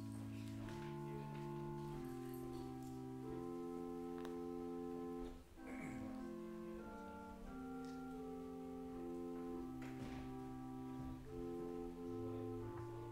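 Slow, quiet instrumental music of sustained keyboard chords, each held without fading and changing every second or two, played during communion.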